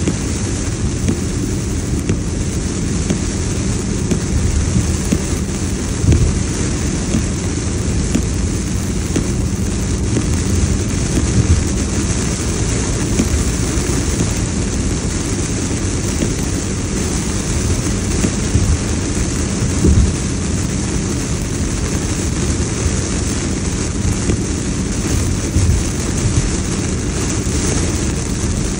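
Heavy hurricane rain on a moving car and tyres hissing on the flooded road, heard from inside the cabin. A steady, loud wash of noise with a few louder low thumps, about six, eleven and twenty seconds in.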